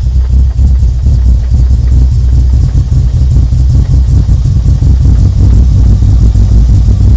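BMW E34 540i's M60 4.0-litre V8 engine running at a steady idle, a loud low rumble.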